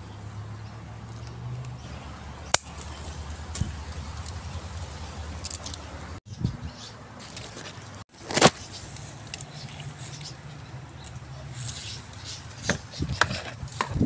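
Scissors snipping eggplant stems: a few sharp clicks over a steady low hum, cut off twice by brief dropouts.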